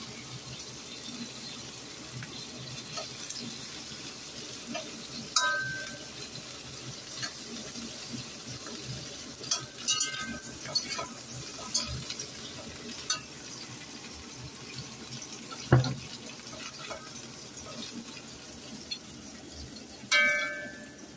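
Shell-on shrimp frying in oil in a wok, a steady sizzle, broken by several sharp clinks and knocks as a spatula strikes the pan, one louder knock about three quarters of the way through and a ringing clink near the end.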